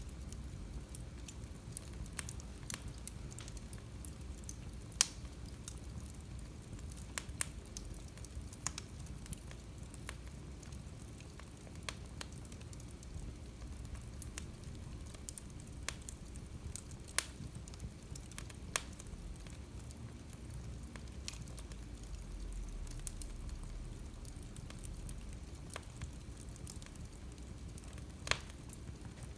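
Wood fire burning in a fireplace: a steady low rustle of flames with irregular crackles and sharp pops, a few louder snaps standing out.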